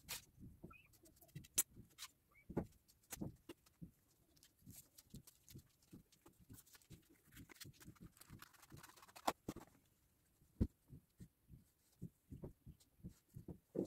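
Faint handling sounds: scattered light taps and knocks with a little soft rubbing as plaster-coated cardboard pieces are turned over and smoothed by hand.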